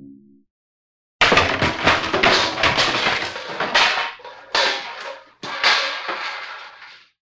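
Cartoon crash sound effect: a run of bangs and crashing hits in three or four bursts, each dying away before the next, lasting about six seconds.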